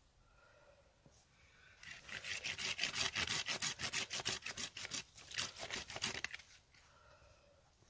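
Hand saw cutting through a thin pine log: a fast run of rasping strokes, about five or six a second, starting about two seconds in and stopping a little after six seconds, with a brief slowing around five seconds.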